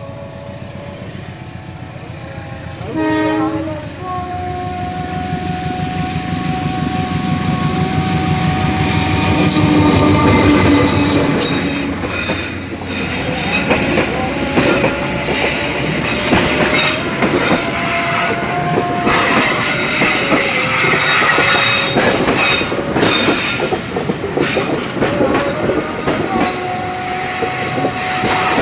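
Indonesian diesel-hauled passenger train approaching on a curve: a short horn blast about three seconds in, then the locomotive's engine growing louder as it draws near. The coaches follow, rolling close past with wheels clacking over the rail joints and squealing in steady, shifting tones.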